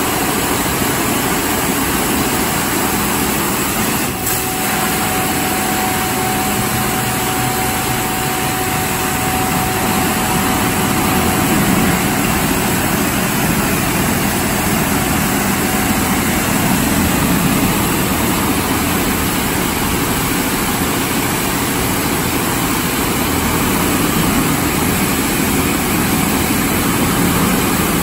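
D&S Quicksilver touchless car wash gantry blasting high-pressure water jets onto a pickup truck: a loud, steady hiss of spray splashing on the truck and the floor of the bay, with a faint steady whine from about four seconds in to about sixteen.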